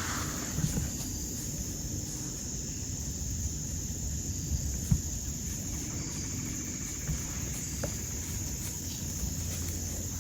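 Steady high-pitched drone of crickets and other insects, with a few light knocks and one sharper knock about five seconds in.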